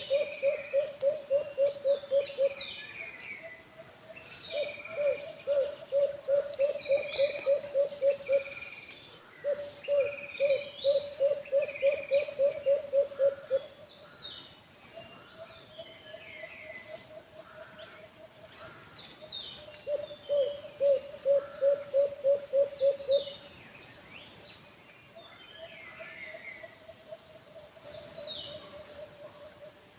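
An alimukon dove cooing in repeated runs of quick, evenly pulsed low notes, each run lasting a few seconds, with other small birds chirping and a steady high-pitched buzz behind.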